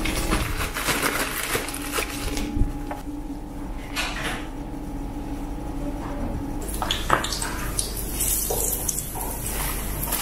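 Knocks and clinks of a frying pan and oil bottle. About seven seconds in, flour-coated pieces dropped into hot oil in the frying pan start sizzling with a steady hiss.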